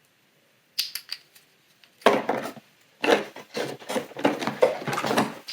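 Cardboard advent calendar and small plastic toy pieces being handled. A few sharp clicks come about a second in, then a stretch of continuous rubbing and scraping.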